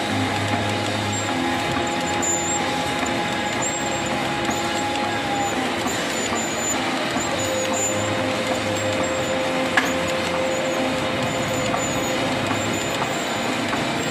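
Milling machine running as a tap cuts threads into a hole in a heavy steel workpiece, over steady workshop machinery noise. A steady whine drops to a lower pitch about halfway through, and there is one sharp click about two-thirds of the way in.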